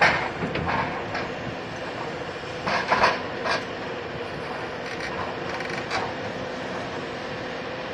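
Hydraulic excavator with a demolition crusher crushing reinforced concrete: sharp cracks and crunches from the jaws, loudest in a cluster about three seconds in, over the steady hum of the excavator's engine and hydraulics.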